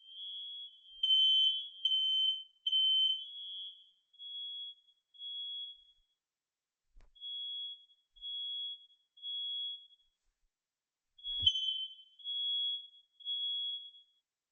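Smoke detector in alarm, sounding a high-pitched beep in groups of three, about a second apart with a pause between groups: the temporal-three alarm pattern, set off here by a test. For the first few seconds a second, louder beep sounds over it, then stops; a single knock comes about eleven seconds in.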